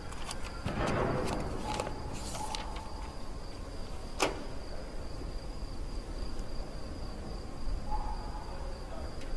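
Quiet film-scene ambience: a steady thin high whine, with a brief rustle about a second in and a few sharp clicks, the loudest just after four seconds.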